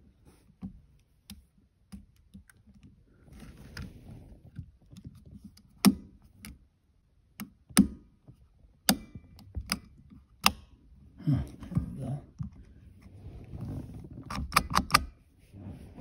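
Plastic clicks and knocks from a seatbelt buckle's cover being worked back up into place by hand, with rustling handling noise between them. Single sharp snaps come every second or so, and a quick run of clicks comes near the end.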